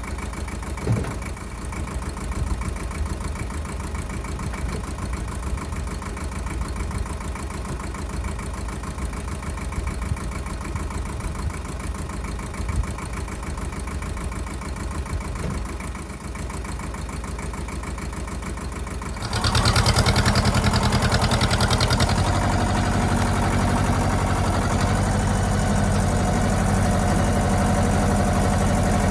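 Ford 1700 compact tractor's three-cylinder diesel engine idling steadily, with a few knocks. About two-thirds of the way through it is throttled up suddenly and runs louder and faster.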